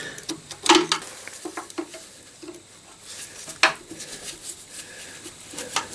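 Metal hand tool clinking and scraping on the greasy nuts and fittings of an old car's brake master cylinder mounting as they are worked loose. A few sharp clinks, the loudest about a second in, midway and near the end, with faint scraping between.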